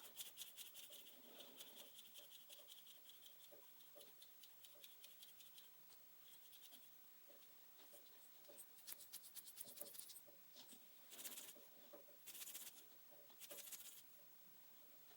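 Faint, quick, light tapping and scratching on a small object, as ASMR trigger sounds. A high ring fades out over the first few seconds, and three short brushing swishes come near the end.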